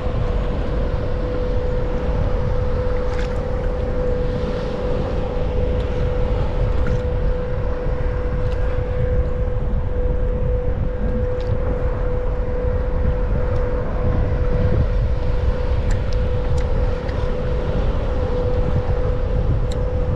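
Bixpy electric kayak motor running steadily with a constant high whine, under heavy wind rumble on the microphone.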